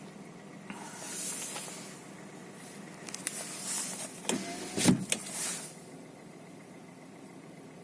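Hyundai Solaris 1.4-litre petrol engine revved in a few short blips, with a knock as the throttle is released. The knock is unchanged after switching from 92- to 95-octane fuel, so it is not cured as detonation would be.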